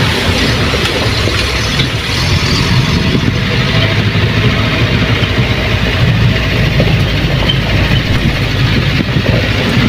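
Vehicle engine running steadily with a deep rumble.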